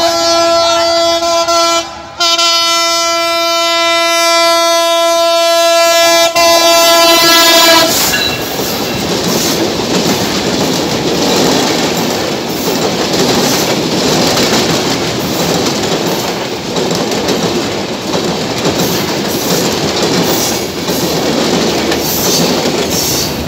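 EMD GT42AC diesel-electric locomotive's horn sounding a long steady blast, broken briefly about two seconds in, as the train comes through at speed. The horn stops about eight seconds in and the coaches then rush past with a continuous rumble and rail clatter.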